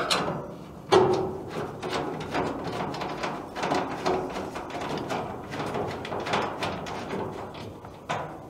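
A screw being driven back into the furnace's sheet-metal filter cover, with metal clicking, scraping and light rattling. Sharp knocks at the start and about a second in, then a steady run of small irregular clicks.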